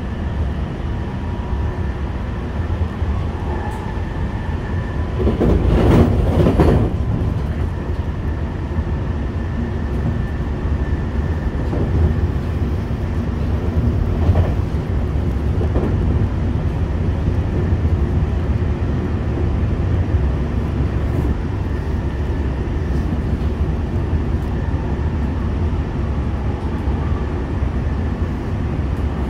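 Interior running noise of a JR West 225 series electric train, heard in a motor car fitted with a Hitachi IGBT VVVF inverter: a steady low rumble of wheels on rail with faint steady motor tones. A loud rushing burst comes about five seconds in and lasts a second or two, and a few single knocks follow later.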